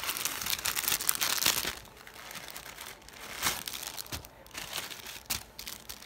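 Wrapping and clear plastic packaging crinkling in the hands as gifts are unwrapped: dense and loud for the first second and a half or so, then softer, scattered rustles.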